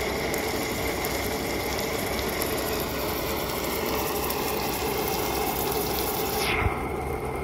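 Onions and garlic frying in hot oil in a cooking pot: a steady sizzling hiss over a low hum. The hiss cuts off suddenly near the end, leaving only the low hum.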